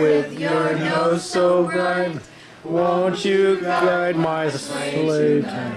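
A group of people singing a slow Christmas carol together, holding long notes, with a short breath pause about two seconds in.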